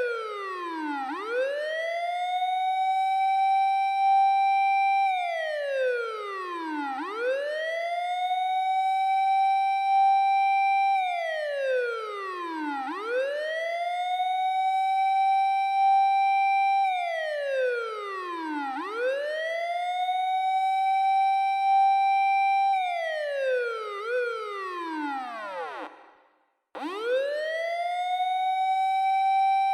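Japanese fire engine siren wailing in a six-second cycle: the tone rises for about a second, holds high for several seconds, then glides down, over and over. Near the end one fall wobbles and the sound cuts out briefly before the siren winds up again.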